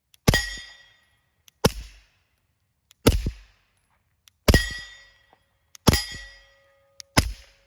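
Suppressed Glock 19X 9mm pistol, fitted with an Obsidian 9 suppressor, fired six times at a slow even pace about one and a half seconds apart. Each shot is followed by a short metallic ring.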